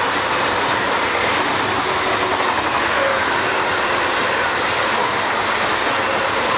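ICE high-speed electric train passing close at speed: a loud, steady rush from its cars going by, with no let-up.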